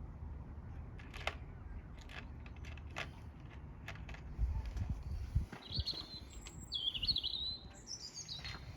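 A small bird chirping in short calls, several times in the second half. Scattered light clicks and knocks of hand tools sound through it, with a brief low rumble just before the chirps.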